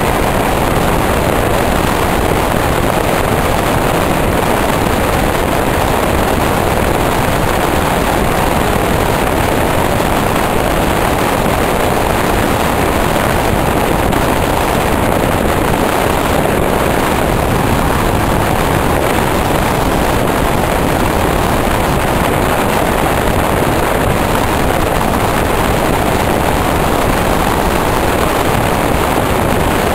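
Steady loud rush of an electric passenger train running at speed, heard from an open window, with wind buffeting the microphone.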